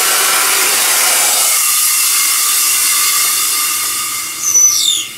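Snowpulse Life Bag avalanche airbag inflating from its compressed-air canister: a loud, steady rush of escaping air as the bag fills. After about four seconds it eases off, a short falling whistle sounds, and it stops just before the end as the bag reaches full inflation.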